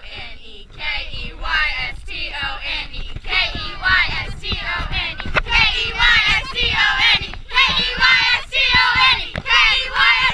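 A group of girls singing together at full voice in a huddle, many voices in unison, growing louder about halfway through.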